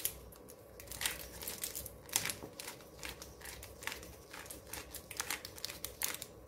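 Fingers mixing seasoned flour in a glass bowl, giving an irregular, soft rustling and scraping.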